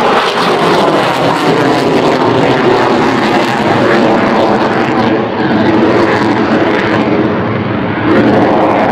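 Chengdu J-20 stealth fighter jet noise during a flying display: a loud, steady rushing roar. It dips briefly about five seconds in and again near eight seconds, and the high hiss fades in the second half as the aircraft moves away.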